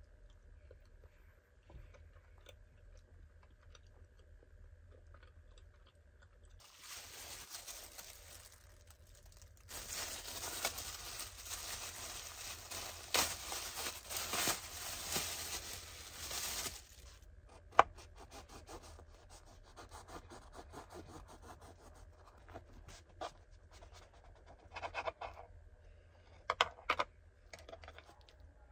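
Plastic cling wrap crinkling and rustling for about ten seconds as it is peeled off a sandwich filling. Then a single sharp tap and a few short scraping sounds as a soft bread-roll sandwich is cut and pressed, and it is hard to cut through.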